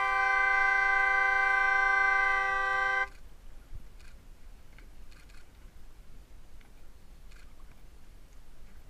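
Sailing race committee's signal horn giving one long steady blast that stops abruptly about three seconds in, a signal in the countdown to the race start. Only faint low background noise follows.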